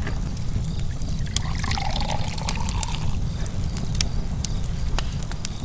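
Fire crackling, sharp snaps over a steady low rumble, with a softer hiss rising about a second and a half in and fading by three seconds.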